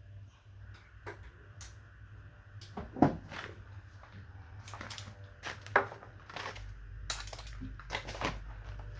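Irregular clicks and clunks of hand tools and metal parts being handled in an engine bay, with two sharper knocks about 3 and 6 seconds in, over a steady low hum.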